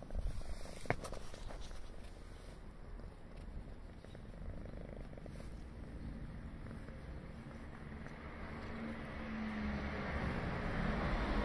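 Tortoiseshell cat purring steadily while being stroked. There is a sharp click about a second in, and a rushing noise swells toward the end.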